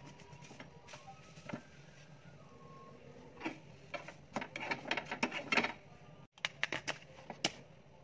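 A spatula scraping and tapping against a nonstick frying pan as a pancake is worked loose and turned: scattered clicks, then a busy run of quick scrapes in the middle.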